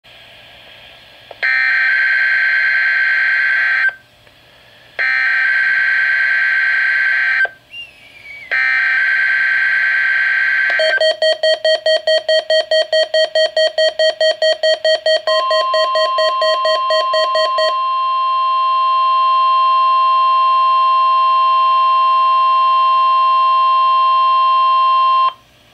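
NOAA Weather Radio weekly test signal: three bursts of Emergency Alert System digital header data tones, each about two and a half seconds long with short gaps between. Then a rapid beeping alarm at about four to five beeps a second, and about fifteen seconds in the steady weather radio warning alarm tone begins, carrying on alone after the beeping stops and cutting off shortly before the end.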